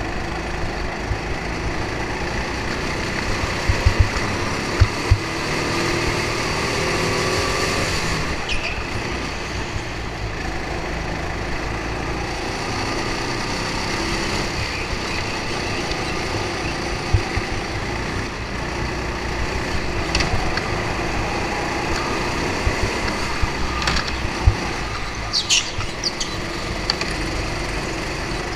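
Onboard sound of a go-kart racing: its motor runs steadily along with rolling noise from the chassis and tyres. A few low knocks come about four to five seconds in, and brief high squeals come near the end.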